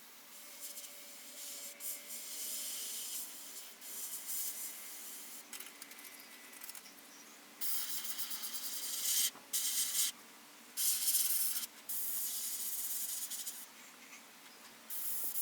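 Airbrush spraying paint in short bursts of hiss as the trigger is pressed and let go again and again. The bursts are fainter in the first half and louder and longer in the second.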